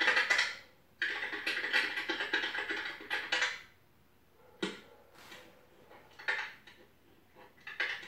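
Computer keyboard typing in quick clicking runs for a couple of seconds, followed by a few single clicks spaced a second or two apart, heard from a TV's speakers.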